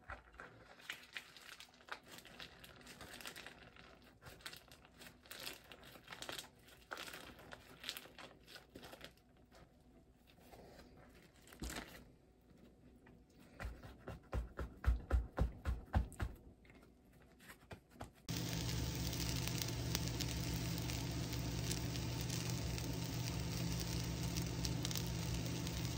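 Crinkling and rustling of a food wrapping being handled and opened, with a few soft low thumps. About eighteen seconds in, this gives way to a steady sizzle of food frying in a frying pan, over a low hum.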